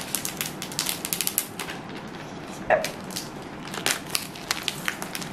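Clear plastic wrap crackling as it is peeled and torn off a smartphone box. The crackles come thick and fast for the first second and a half, then as scattered crinkles.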